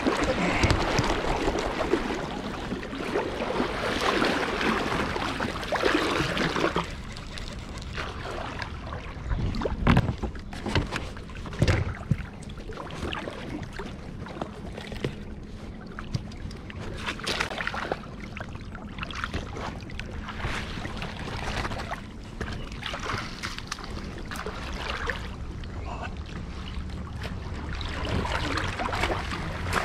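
Water sloshing and lapping against a fishing kayak's hull, with scattered knocks and clicks of gear against the boat.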